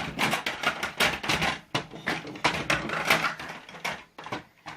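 Hard plastic toys and capsules clattering and knocking against each other and a hard surface, a quick irregular run of clicks and knocks.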